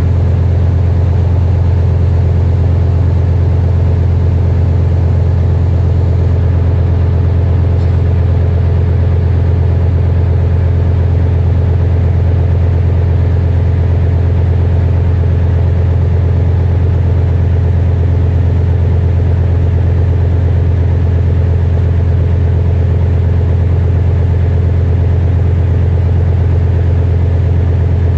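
Tugboat's diesel engine running steadily under load while towing a barge: a loud, constant low drone with steady higher tones above it.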